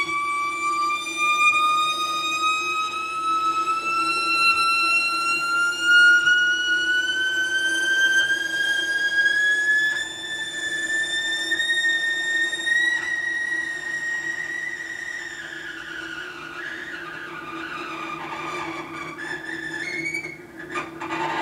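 Cello bowed high on the fingerboard: one sustained note slides slowly and smoothly upward for about thirteen seconds, like a siren glide. It then wavers and falls back in broken, uneven slides, with a few short, sharp bow strokes near the end.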